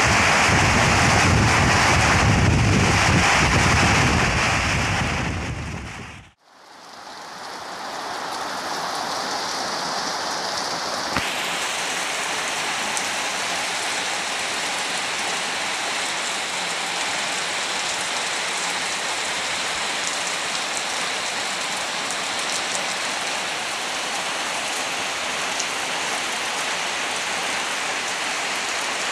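Heavy rain pouring on open ground, with gusting wind rumbling on the microphone for the first several seconds. About six seconds in, the sound fades out briefly, then comes back as a steady downpour hissing on the wet ground.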